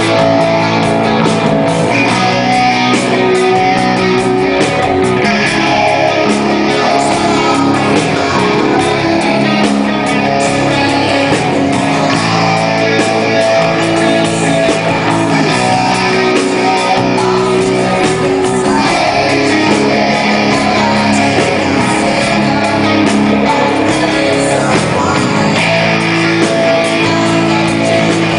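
Live rock band playing loud, with strummed electric guitars over a steady full-band backing.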